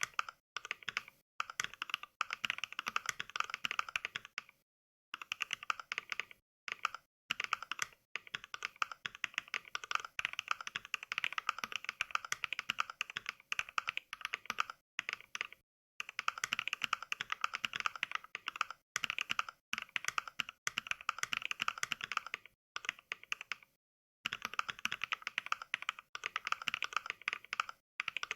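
Fast mechanical-keyboard typing clacks from the Mechvibes NK Cream sound pack, a software simulation of NovelKeys Cream linear switches, sounding once for each keystroke. The typing comes in quick runs broken by brief dead-silent pauses, the longest about five seconds in, sixteen seconds in and near twenty-four seconds.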